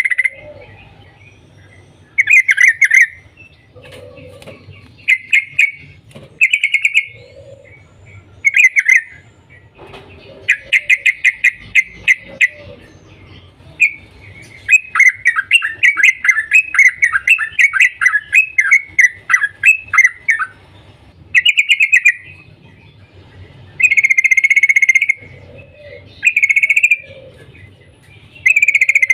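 Yellow-vented bulbul calling: short loud bursts of bubbly 'cuk cuk' notes every second or two, with a longer run of rapid falling notes through the middle.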